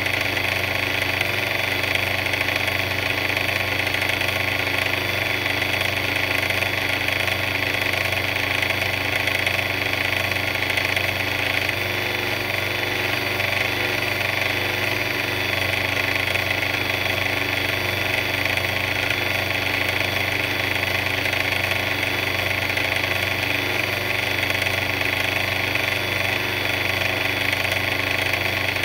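Engine of a concrete mixer running steadily, with no change in speed.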